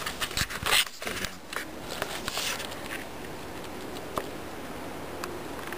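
Handling noise: scattered rustles, scuffs and light clicks, with a brief louder rustle about a second in and another about two and a half seconds in.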